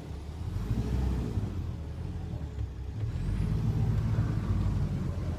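Vehicle engine running with low road rumble, its note swelling twice as it pulls.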